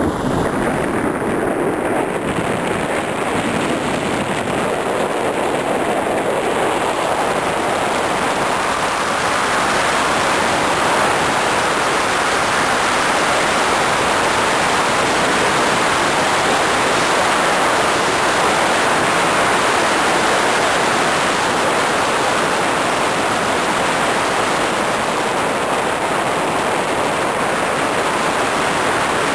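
Steady rushing noise of wind on the microphone and tyres on the road from a moving vehicle, growing a little louder about ten seconds in.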